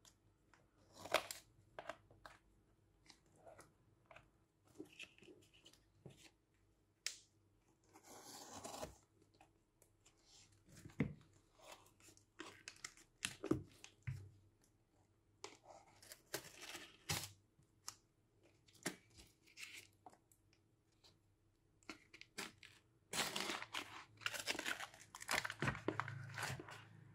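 Hands tearing open a shipping parcel: tape and packaging ripped and crinkled in short bursts, with scattered clicks and handling knocks, busiest near the end.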